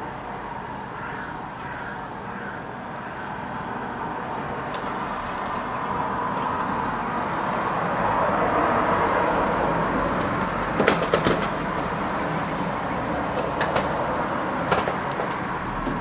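Wood pigeon wings clapping: a quick burst of four or five sharp slaps about eleven seconds in and a few single slaps later, over a steady hum of distant traffic that swells in the middle and then eases.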